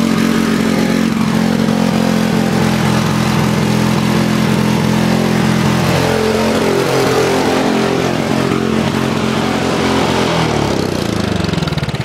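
Craftsman riding tractor's Tecumseh 11 hp single-cylinder engine running loud and fast with the throttle turned down. The revs climb instead of dropping, a sign of a carburetor setup fault that the owner calls "not good" and "one way to blow your motor". Its pitch shifts about halfway through, then the engine slows and begins winding down near the end.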